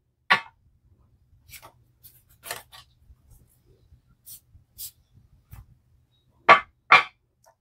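Paper test strip and bottle handled with soft rustles and ticks, then the Ahmed Al Maghribi Love Story perfume bottle's atomizer sprayed twice in quick short hisses onto the strip near the end.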